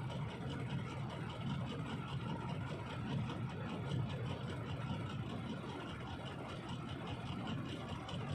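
Heavy diesel engine running steadily, with an even low rumble and no change in pitch.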